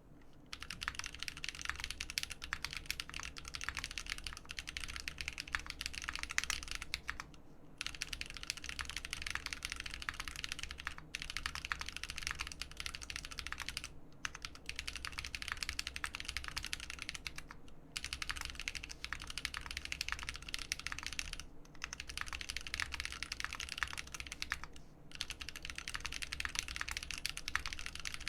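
Continuous fast typing on a custom mechanical keyboard: a RAMA Thermal case with an aluminium plate, lubed AEBoards Naevy switches on 58 g springs, and GMK keycaps. The keystrokes run in dense runs with brief pauses every few seconds.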